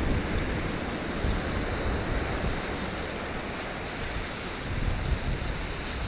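Sea waves washing in against shoreline rocks, a steady rush that swells and eases, with wind rumbling on the microphone.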